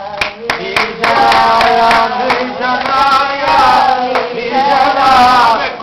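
Lebanese mijana and ataba folk singing, with a few sharp hand claps in the first second.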